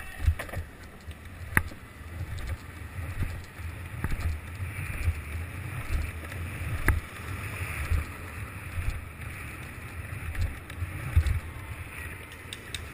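Skateboard wheels rolling fast over city asphalt: a continuous low rumble with irregular thumps over bumps and cracks, and a couple of sharp clicks.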